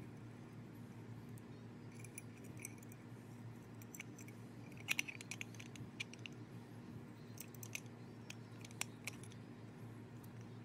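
Light clicks and metallic clinks of a vintage Craftsman electric drill's parts being handled: the field coil and its lead wires being fitted into the aluminium motor housing. A cluster of clicks comes about five seconds in, with a few more near eight and nine seconds, over a low steady hum.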